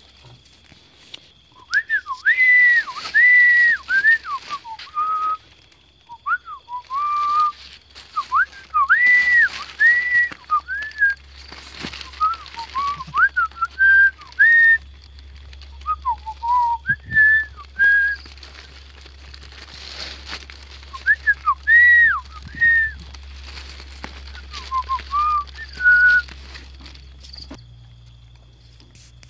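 A person whistling in phrases of short, gliding, arching notes, with pauses between the phrases.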